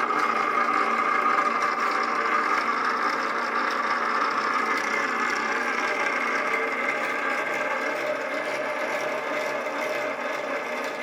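Home-built flywheel generator rig running: an electric motor spinning a wooden flywheel that drives a geared DC motor as generator, giving a steady mechanical whir with a whine of several tones. It grows slowly quieter toward the end.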